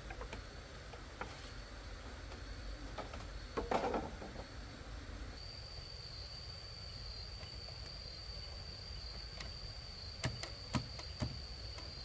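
A steady high-pitched insect drone that sets in about five seconds in and holds. Sharp knocks of bamboo poles being handled: one louder one a little before four seconds, and three quick ones near the end.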